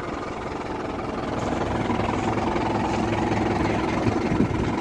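Diesel tractor engine running steadily at idle, growing a little louder over the first couple of seconds.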